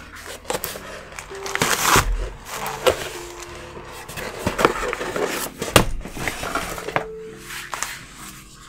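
Cardboard mailer box and a paper magazine being handled: a scraping rustle about two seconds in and several short knocks and clicks, over soft background music.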